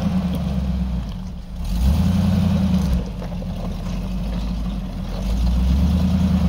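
A 4x4 Jeep's engine working through a trail obstacle, its throttle opening in three surges and easing back between them.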